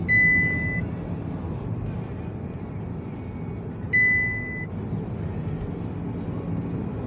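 Steady low road and engine rumble inside a moving vehicle. Two identical high electronic beeps, each under a second long, sound at the start and again about four seconds in.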